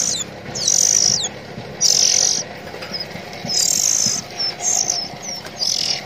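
Young oriental magpie-robins begging to be fed: five harsh, hissy calls about half a second long, roughly one a second, with short falling chirps between them.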